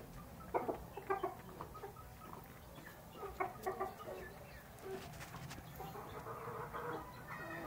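Chickens, a rooster and hens, clucking in short clustered calls, loudest about half a second in and again around three and a half seconds in.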